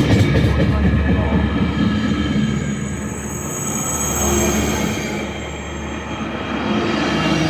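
Metrolink commuter train with an EMD F125 diesel locomotive, its engine running with a steady low drone. High-pitched wheel squeal comes in about two and a half seconds in and fades out around five seconds in.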